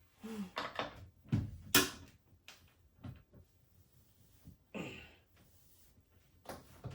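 Spanner knocking and scraping on a washing machine's transit bolts as they are being worked loose: a few separate clicks and clunks, the sharpest about two seconds in.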